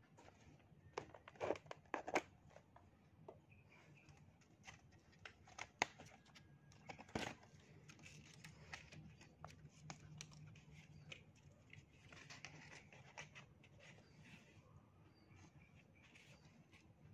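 Cardboard model machine gun's bipod being handled and its legs pulled out by hand: faint scraping and rustling of cardboard and tape with scattered sharp clicks. The loudest clicks cluster about one to two seconds in, with another sharp one about seven seconds in.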